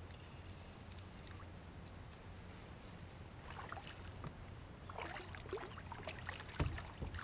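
A hooked white bass splashing and thrashing at the water's surface beside a kayak, starting about three and a half seconds in, with one louder thump near the end. A steady low rumble runs underneath.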